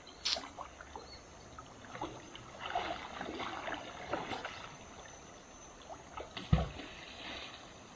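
Water splashing and sloshing, with scattered knocks, as someone moves about in a river. A single heavy thump comes about six and a half seconds in.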